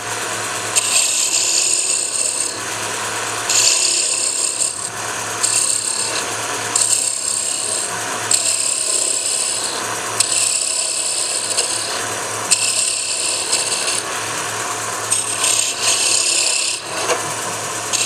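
Wood lathe running with a steady motor hum while a hand-held turning tool cuts a spinning hardwood blank in repeated passes of a second or two each, a hissing, scraping cut, as a taper is shaped from the large diameter down toward the small.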